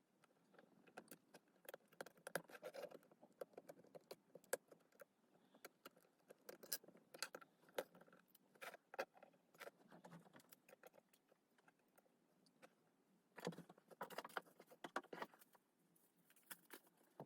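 Faint, irregular clicks, taps and light scrapes of small tools and parts being handled while a Samsung Galaxy S8 smartphone is taken apart, in three clusters with a quieter stretch between the second and third.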